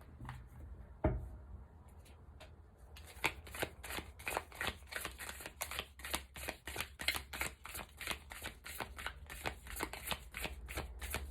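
A deck of tarot cards being shuffled by hand: a few single card taps, then from about three seconds in a steady run of quick card slaps, several a second.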